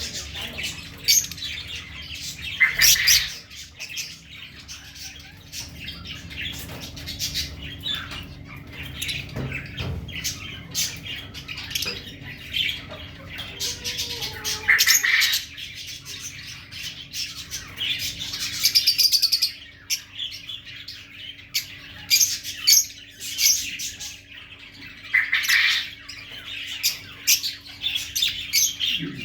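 Fischer's lovebirds chirping and squawking in short, shrill calls, with several louder outbursts of screeching chatter scattered through.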